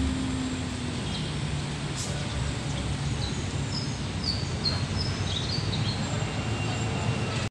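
Boom crane truck's engine running steadily while the crane lifts a sheet-metal stall, a low rumble throughout. Birds chirp several times in short high notes midway through.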